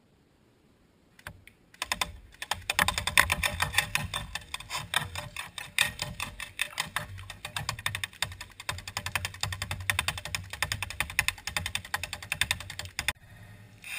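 Battery-powered airsoft AK (electric gun) firing a long full-auto string: a rapid, even rattle of shots starting about two seconds in and cutting off suddenly about a second before the end.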